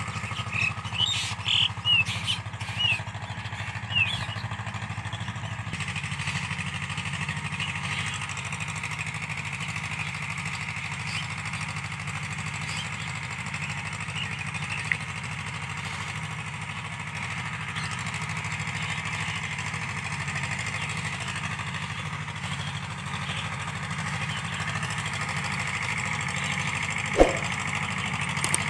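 Escort 335 tractor's diesel engine running steadily under load, a low even drone as it pulls a cultivator through the field. A few short high chirps come in the first few seconds, and there is a single sharp click near the end.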